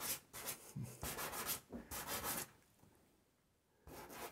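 A stick of dry pastel scratching across paper in a run of short strokes, which stop for about a second and a half and start again near the end.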